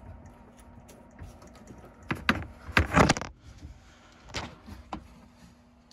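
Handling noise from a T-tap connector being clipped and crimped onto a thin car wire: rustling, with several sharp clicks and knocks, the loudest cluster about three seconds in.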